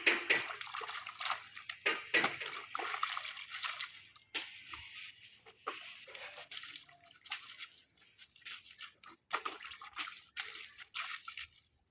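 Cloth being rinsed by hand in water: irregular splashing, sloshing and dripping. The splashing is busy for the first few seconds, then comes in scattered bursts.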